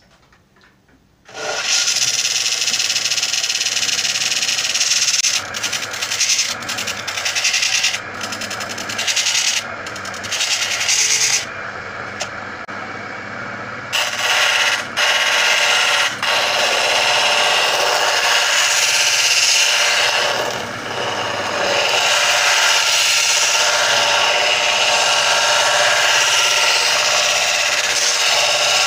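A power tool's motor running while it grinds or sands away material. It starts about a second in, cuts in and out several times in the middle, and then runs steadily.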